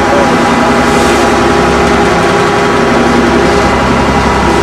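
A loud engine running steadily at a constant speed, its hum unchanging throughout.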